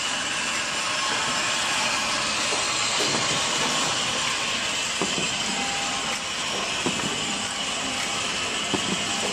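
Thermocouple tip assembling machine running: a steady hissing, rattling noise, with a few light clicks in the second half.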